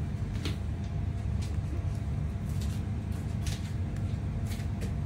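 Oil heating in an earthenware pot over a gas stove: a steady low rumble with a few faint crackles, roughly one a second.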